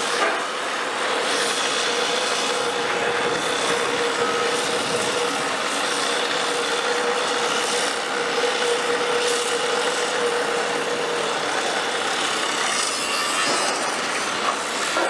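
Old harbour crane travelling along its gantry bridge: a steady grinding of steel wheels on rails with a whine from its drive that stops about two-thirds of the way in.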